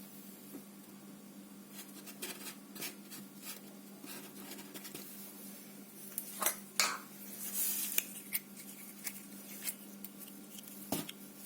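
Pink slime being handled and mixed, giving scattered sticky clicks and crackles that grow busiest a little past halfway, over a steady low hum.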